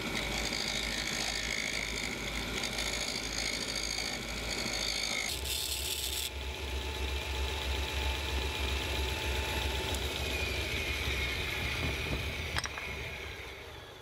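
Old Bosch Combi lathe, driven by a drill motor through a V-belt, running steadily while a small hand tool scrapes the spinning wooden dowel. The sound changes a little about five seconds in; after a click near the end the running dies away.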